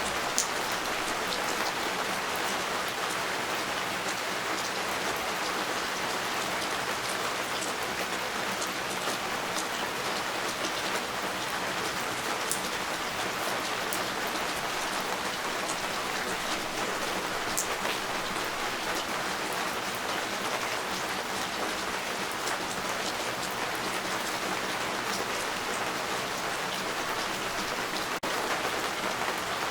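Steady rain falling, an even hiss with many fine drop ticks; the sound dips briefly near the end.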